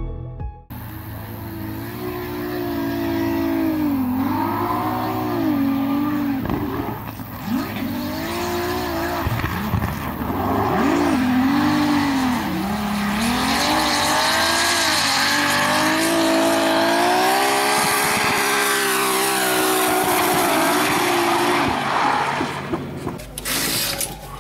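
BMW E30 drift car on track: the engine revs rise and fall again and again as it holds a drift, over the hiss of spinning, squealing tyres. A few sharp clicks near the end.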